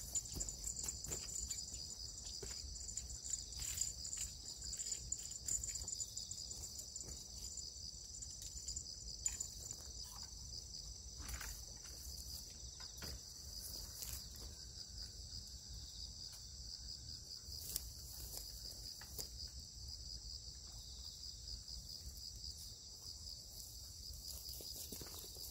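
Steady high-pitched insect chorus, a continuous fine trill of crickets, with scattered faint clicks.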